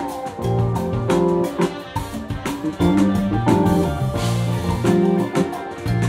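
Live jazz-fusion band playing an instrumental: a drum kit and percussion hitting a steady beat under held bass notes, with keyboards, electric guitar and trumpet and saxophone on top.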